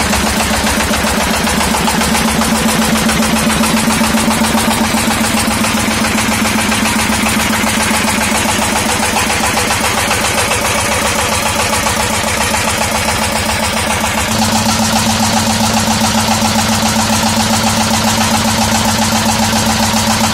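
24 PK stationary diesel engine running steadily under load with a rapid, even beat, belt-driving a Kawamoto 6-inch irrigation water pump.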